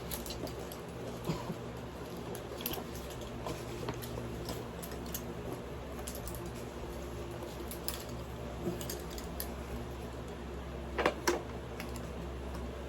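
Light clinks and rustles of military belt webbing and its metal hooks and fittings being handled while the kit is put on, with a couple of sharper clicks near the end, over a steady low hum.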